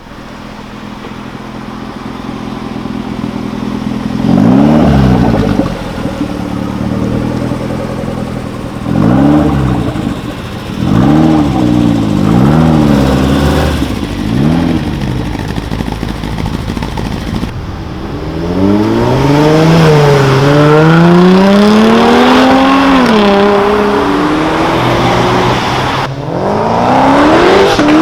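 High-performance car engines revving hard. First come several short, sharp throttle blips, then a car accelerates through the gears, its pitch climbing and dropping back at each upshift, and near the end another hard rev.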